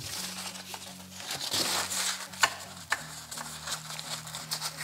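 A blue paper towel crumpling and rustling as gloved hands press and fold it around a small circuit board, blotting off the cleaning alcohol. There are several sharp crackles among the rustle.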